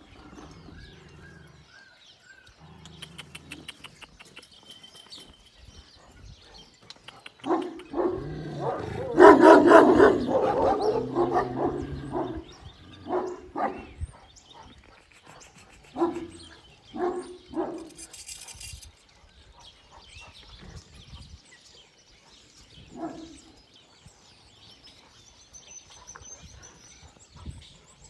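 Kangal dogs barking: a loud run of several deep barks overlapping about eight to twelve seconds in, then single barks every few seconds.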